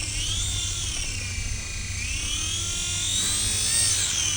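Electric motor and propeller of a Typhoon2 RC airplane whining, the pitch rising and falling several times as the motor speeds up and slows, over a steady low hum. It sounds like the battery still has plenty of charge left.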